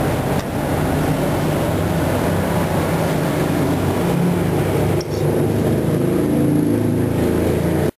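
Steady, loud low rumble of mechanical background noise, with shifting engine-like tones underneath. It dips briefly about five seconds in.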